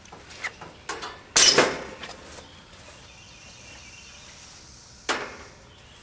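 Sheet-metal access panel of an air conditioner condensing unit being pulled off: a few light clicks, then a loud metallic clatter about a second and a half in, and a second clatter about five seconds in.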